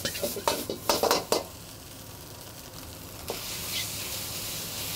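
Fried rice sizzling in a wok over a gas burner at the finishing stage, with soy sauce just added, while a metal ladle clanks against the wok several times in the first second and a half. The sizzle then drops away for a couple of seconds and comes back after another clank about three seconds in.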